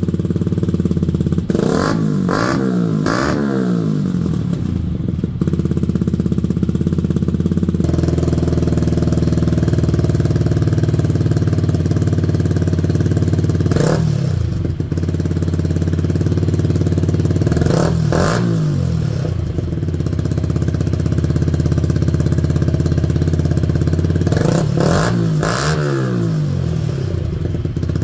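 Yamaha 125 cc single-cylinder four-stroke motorcycle engine idling through an exhaust under test, blipped with sharp throttle revs: three quick revs about two seconds in, single revs about halfway and about two-thirds of the way in, and three more quick revs near the end.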